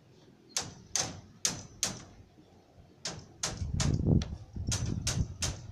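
A series of sharp knocks, about two to three a second: four in the first two seconds, then several more from about three seconds in, with a low rumble under the later ones.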